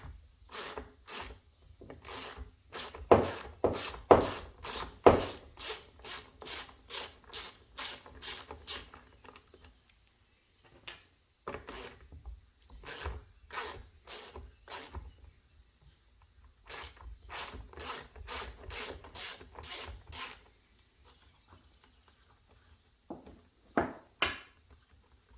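Socket ratchet clicking in steady strokes, about two to three clicks a second, as two 8 mm bolts on a Stihl FS 56 RC trimmer are backed out. The clicking comes in three runs with short pauses, and a couple of last clicks near the end.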